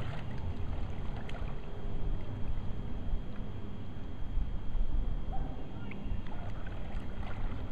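Lake water splashing and lapping against a board as a man paddles it with his hands, over a steady low rumble.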